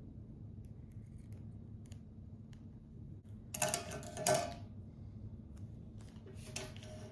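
Electrical tape being handled: two short scratchy bursts, the louder one about halfway through and a shorter one near the end, over a low steady hum.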